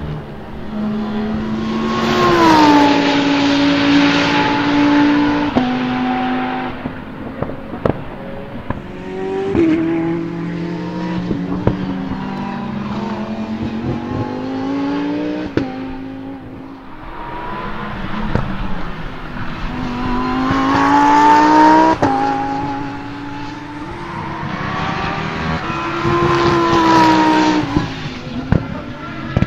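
Lamborghini Huracán Super Trofeo EVO2's 5.2-litre naturally aspirated V10 racing engine at high revs. Its pitch climbs and then drops in steps several times with gear changes. It is loudest a couple of seconds in and again past the middle.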